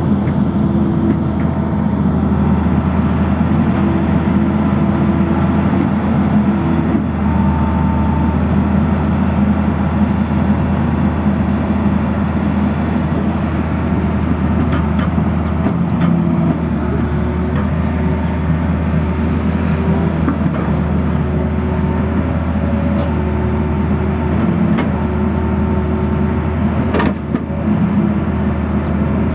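Tata Hitachi hydraulic excavator running steadily while digging rocky soil, its engine and hydraulics changing note several times as the boom and bucket work. There is a sharp knock near the end.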